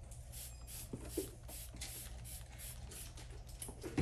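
Hand-held water spray bottle misting wet hair: a quick run of short hissing spritzes, about three or four a second.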